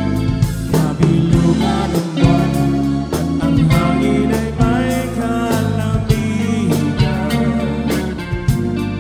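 Live band playing a pop-rock song: drum kit, electric bass, electric guitar and keyboard, with a man singing lead into a microphone.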